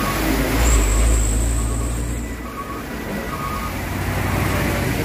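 Heavy truck engine running close by, a deep rumble loudest in the first two seconds that then eases off, over the noise of traffic on a wet road.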